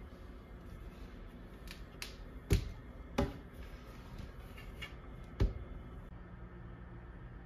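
A few sharp clicks and taps, three of them loud, about two and a half, three and five and a half seconds in, from handling the kitchen cupboard under the stove.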